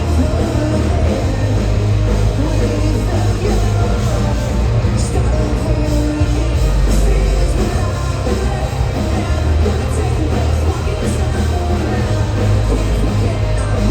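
Live metalcore band playing loud, with distorted guitars, heavy bass and drums, and vocals, recorded from the crowd.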